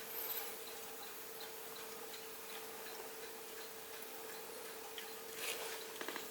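Crane ultrasonic cool-mist humidifier running: a steady low hum with light, regular ticking about three times a second. A brief rustle and a few clicks come near the end.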